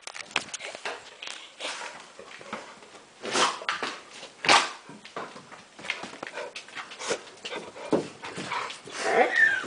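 Dogs barking a couple of times and whimpering, with a short whine near the end, amid knocks and rustles from the phone being handled.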